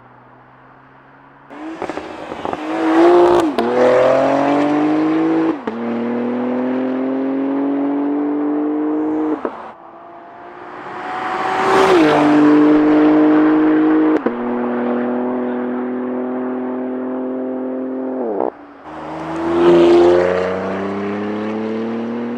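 BMW X3 M's S58 twin-turbo straight-six, heard through a Valvetronic Designs valved exhaust, accelerating hard after a quiet start. The pitch climbs in each gear and drops suddenly at each upshift, about every four seconds, and the sound is loudest near the start of each pull.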